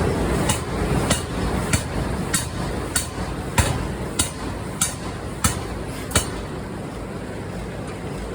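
Forging hammer striking steel in a steady rhythm, about one and a half blows a second, over a constant machinery hum; the blows stop about six seconds in.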